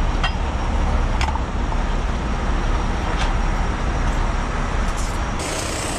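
Steady low rumble of a heavy tow truck's diesel engine idling, with a few sharp clicks.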